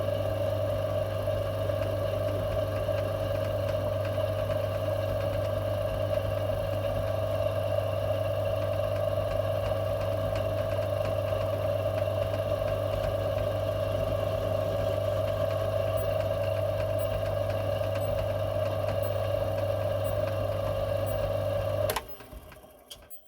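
Small metalworking lathe running steadily, its electric motor giving a strong even hum, while it takes a facing cut on a steel bar. About 22 seconds in it is switched off with a click and quickly runs down to silence.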